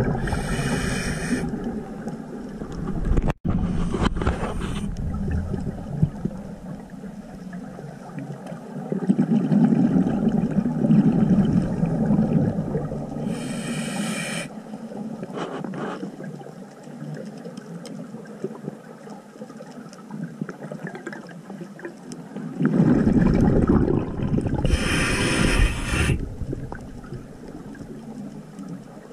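Scuba diver breathing through a regulator underwater: a hissing inhalation roughly every twelve seconds, with surges of rumbling exhaled bubbles, over a steady low rush of water.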